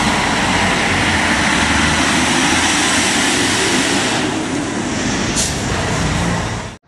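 Scania F113 city bus with a six-cylinder diesel engine driving past close by: steady engine and road noise, with a short high-pitched sound about five seconds in. The sound cuts off suddenly near the end.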